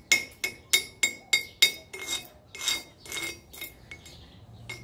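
Steel wire slag brush striking and scrubbing stick-weld beads on a thick steel block, knocking the slag off 7018 welds. About a dozen sharp metallic clinks, two or three a second, each with a short ring, and a couple of longer scrapes past the middle. It stops shortly before the end.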